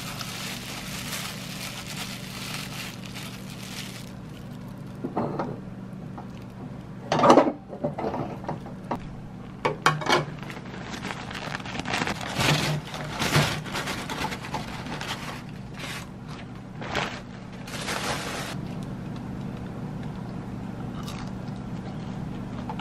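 Food and containers being handled: scattered knocks, clicks and scrapes, the loudest about seven seconds in, over a steady low hum.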